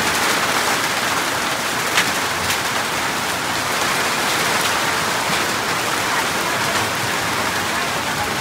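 Hail and rain falling steadily in a dense hiss, with a few sharper ticks of single hailstones striking.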